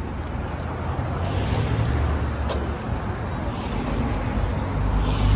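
Street traffic noise: a low, steady rumble of cars that grows louder near the end, with a few faint clicks.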